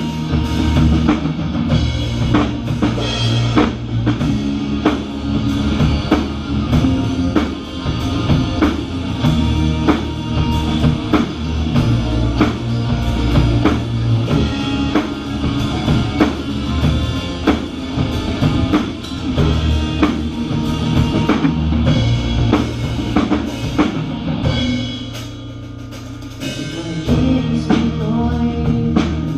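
Instrumental break in a rock song: a full drum kit (kick and snare) driving a steady beat with the band, no singing. Near the end the low end drops away and it goes quieter for a couple of seconds before the full band comes back.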